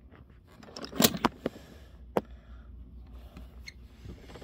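Handling noise from the recording phone being moved and set down: a few sharp clicks and knocks, the loudest about a second in, over faint rubbing.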